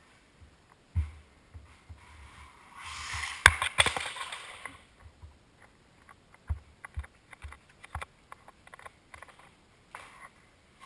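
Losi Mini 8ight RC buggy being driven: a surge of motor and tyre noise about three seconds in with two sharp knocks, then a string of small clicks and low thumps.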